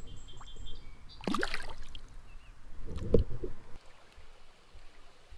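Creek water splashing and gurgling around a hand as a just-caught bass is released into the water, with a short splash about a second in. A low thump follows about three seconds in.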